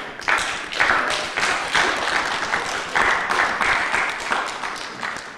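A roomful of people applauding, a dense patter of many hands clapping that dies away near the end.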